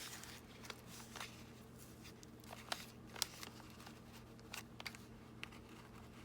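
Paper ephemera being handled and clipped into a junk journal: scattered small clicks and light paper rustles, irregularly spaced.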